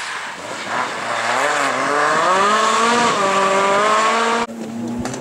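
Rally car engine accelerating hard, its note climbing in pitch with a gear change about three seconds in, then cutting off suddenly near the end.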